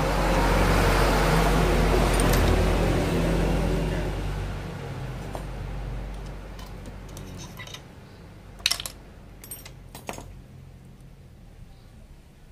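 A motor vehicle's engine running, loud at first and fading away over about five seconds. Then a few sharp metallic clinks as gearbox shafts and gears are handled in the opened crankcase of a Honda Supra Fit motorcycle engine.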